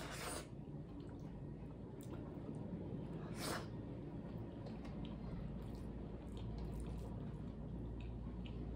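Close-up wet eating sounds: chewing and lip smacking as dal and rice are eaten by hand, with fingers squishing the rice and dal together on the plate. There are two short, louder wet smacks, one just after the start and one about three and a half seconds in, amid scattered small clicks.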